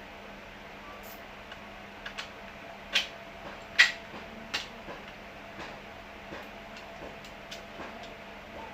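Sharp clicks and knocks of hardware and parts being handled while a prize wheel is put together, the loudest about four seconds in, over a steady low hum.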